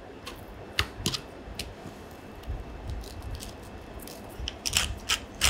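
Raw chicken thighs handled and turned on a plastic cutting board, with a couple of sharp clicks about a second in. Near the end comes a quick run of sharp clicks as white pepper is shaken over the chicken from a small metal shaker.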